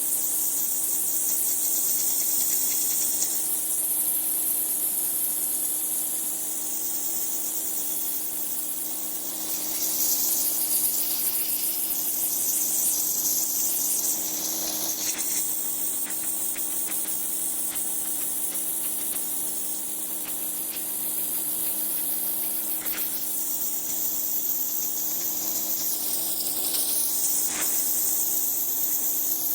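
Pressure washer running: a loud, steady hiss of the water jet spraying, over a constant motor hum.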